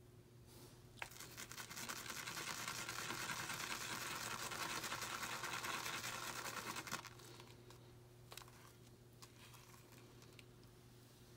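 Synthetic-resin shaving brush whipping cream lather round a lather bowl: a fast, wet swishing for about six seconds that stops abruptly, followed by a few small knocks.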